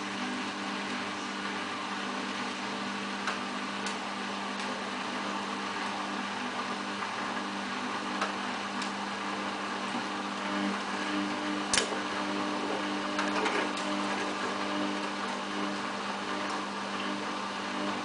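Samsung WF8804RPA front-loading washing machine turning its drum slowly while trying to balance an unbalanced load before the inter spin: a steady motor hum under an even hiss. A single sharp click about two-thirds of the way through.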